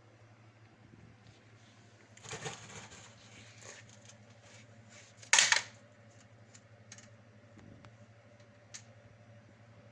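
Scattered handling noises over a steady low hum: a rough rustle about two seconds in, a short loud knock about five seconds in, and a few light ticks later.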